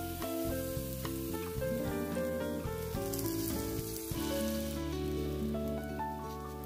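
Okonomiyaki batter with shredded cabbage and vegetables hitting hot oil in a frying pan and being spread with a spatula, sizzling; the sizzle fades after about four seconds. Instrumental background music plays under it.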